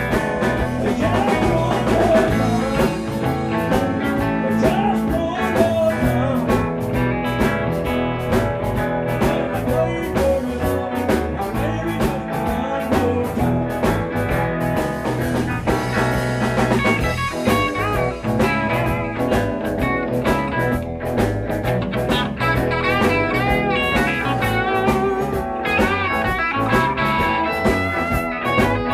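Live band playing electric guitars, bass guitar and a drum kit, with a lead guitar bending notes, most clearly near the end.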